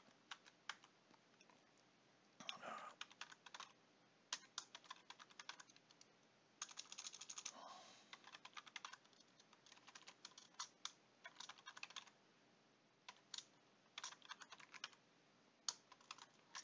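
Computer keyboard typing: quiet keystrokes in quick runs separated by short pauses.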